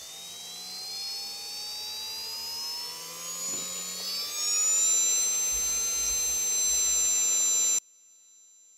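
Acex80 model jet turbine spooling up during its start cycle: a whine that rises steadily in pitch, climbs faster about four seconds in, then holds at a steady high pitch over a low rumble before cutting off suddenly near the end.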